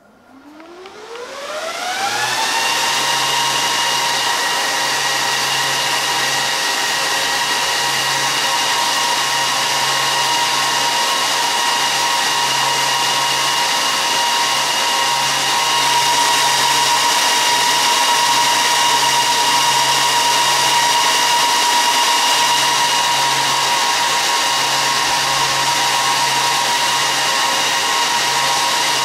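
HP ProLiant ML350 G6 server's cooling fans spinning up, a whine rising in pitch over about two seconds, then running steady and loud at high speed with a rushing hiss.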